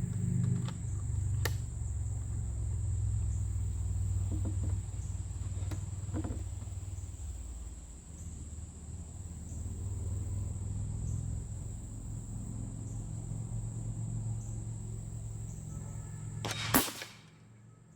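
Outdoor ambience: a steady high insect drone over a low rumble, with a few faint clicks. Near the end comes a single sharp crack, a shot from the Hatsan big-bore air rifle, and the sound drops away suddenly after it.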